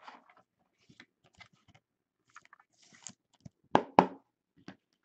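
Trading cards and their plastic holders being handled: scattered crinkling and rustling, then two loud clacks close together about four seconds in and a lighter one just after.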